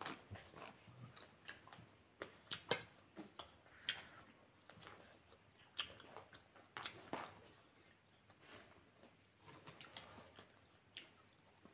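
Faint eating sounds: chewing fried chicken, with mouth smacks and scattered small clicks at irregular intervals.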